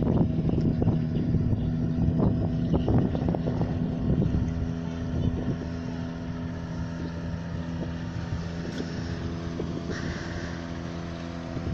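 Yamaha 5 hp outboard motor on an inflatable boat running steadily at speed, the boat up on plane, with a steady engine drone. Wind buffets the microphone, stronger in the first half.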